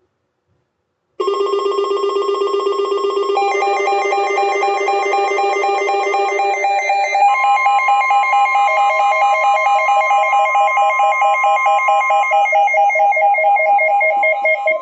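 Several pulsing electronic emergency alert tones sound at once at different pitches. They start about a second in and join one after another, and a steady single tone comes in about halfway through.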